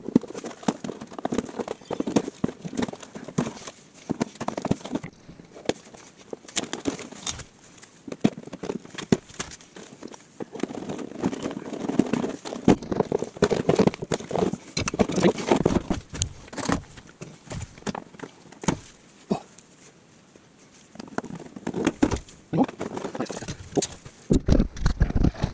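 Irregular clicks, knocks and scraping of plastic trim fasteners and hand tools as the front inner wheel-arch liner of a Renault Captur is worked loose and pulled out, with a quieter stretch about two-thirds of the way through.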